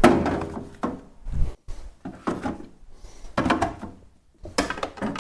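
3D-printed plastic tool trays being set down and shuffled into place in a metal tool-chest drawer: a series of hard plastic knocks and scrapes, about half a dozen, the loudest right at the start.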